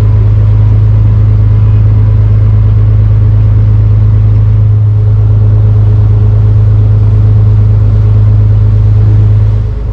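A barge's inboard engine running steadily under way, heard as a loud, constant low drone that dips briefly near the end.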